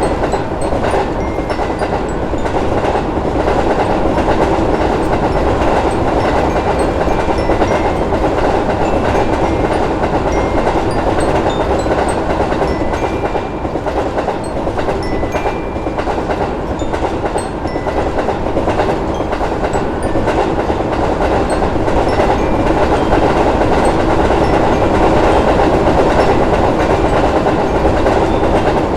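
A train running past on the rails: a loud, steady rumble of wheels and cars that holds throughout with little change.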